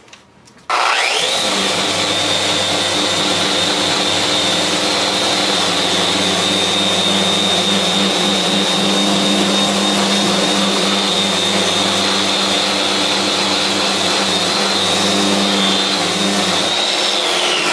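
Festool RO-125 Rotex sander in disc (rotary) mode with a 120-grit disc, sanding a rough purpleheart block, with a dust extractor running on its hose. It starts suddenly a little under a second in, and its whine climbs quickly to a steady high pitch. It runs steadily, then winds down with a falling whine near the end.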